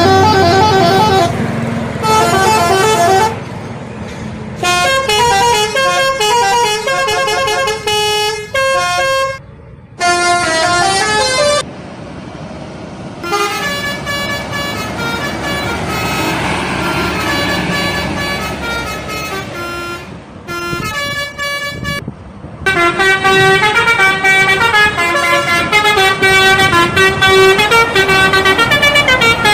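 Telolet horns of Indonesian buses: multi-tone bus horns playing quick stepping melodies, one bus after another in short spliced clips that cut abruptly into each other.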